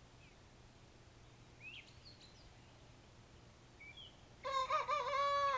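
A two-month-old cockerel crowing once near the end, a short crow that wavers in pitch and then holds steady. Faint chirps come earlier.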